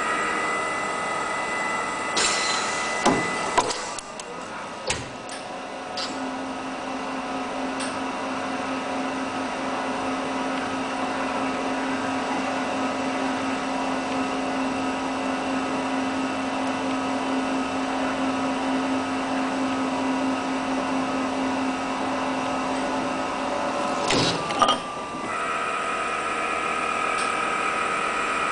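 Hydraulic compressor-shell cutting machine at work: a steady machine whine throughout, with a few clunks and clicks a few seconds in as the chuck clamps. This is followed by a steady low hum for about seventeen seconds while the compressor shell is turned against the cutter, and more clunks near the end.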